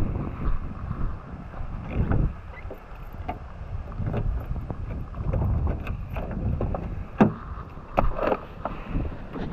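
Wind buffeting the camera's microphone in irregular gusts of low rumble, with a few sharp clicks and knocks in the second half.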